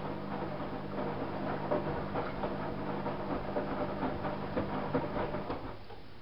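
Privileg Single 42614 washing machine drum turning during its wash cycle, a steady motor hum under the uneven knocks and swishes of the laundry tumbling. The motor stops about five and a half seconds in and the tumbling dies away.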